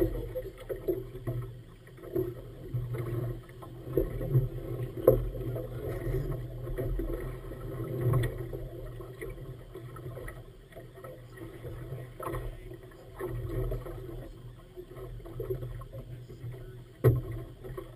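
Water lapping and slapping against the hull of a small inflatable boat on choppy water, in uneven splashes, with some wind on the microphone.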